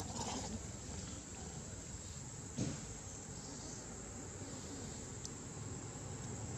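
Insects calling in a steady, high-pitched, unbroken drone over a low background rumble, with one short sharp knock about two and a half seconds in.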